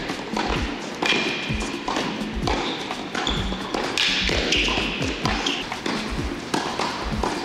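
Background music with a steady, thudding electronic drum beat whose low kicks fall in pitch, over sharp tapping hits.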